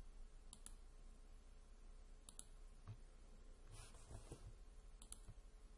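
Faint computer mouse clicks, a few quick press-and-release pairs, over quiet room tone.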